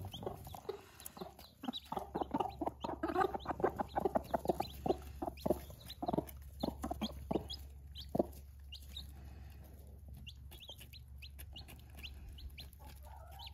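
Mother hens clucking rapidly over food with their chicks, the food call hens use to draw chicks to something to eat. The clucking is dense at first and thins out about eight seconds in, with a few faint, high chick peeps.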